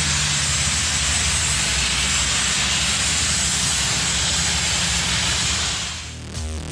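Vapor blasting nozzle spraying water, abrasive and high-pressure air onto concrete to etch it: a steady loud hiss over a low hum, fading out near the end.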